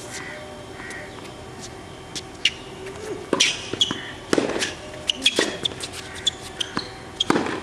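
Tennis ball struck by rackets and bouncing on a hard court during a baseline rally: sharp pops about a second apart from about three seconds in, after a quieter start. Short high squeaks of tennis shoes on the court come between the shots.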